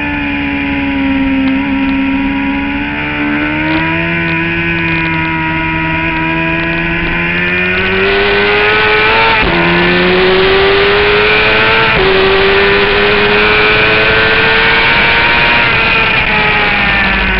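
Suzuki GSX-R750 inline-four engine on track, heard from an onboard camera: held at fairly steady revs through a long corner, then opening up and climbing through the gears, with a sharp drop in pitch at each of two quick upshifts. Wind rush grows louder as the speed builds.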